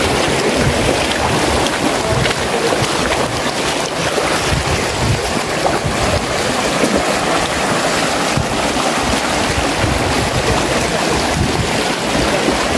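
Boots splashing through a shallow, rocky stream over the steady rush of flowing water, with wind buffeting the microphone.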